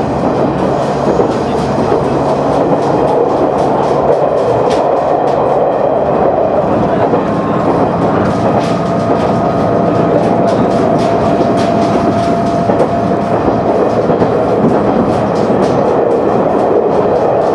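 Cabin noise of a KiHa 100 diesel railcar under way: a steady rumble from the engine and wheels, with scattered sharp clicks as the wheels pass over rail joints. A thin steady whine comes in for a few seconds midway.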